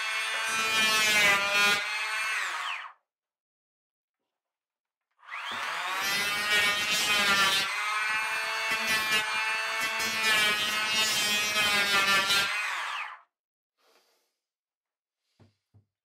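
Handheld electric planer shaving a Douglas fir board. Its motor whine fades out about 3 s in, starts again with a rising whine about two seconds later, runs for about 7 s and winds down, followed by a few faint knocks.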